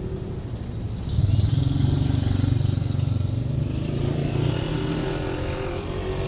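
A motor vehicle passing by on a city street, its engine rumble swelling suddenly about a second in and then fading slowly.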